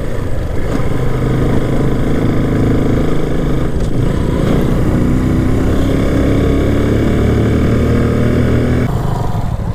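Motorcycle engine running while the bike is ridden. Its pitch climbs gradually over several seconds, then drops suddenly near the end.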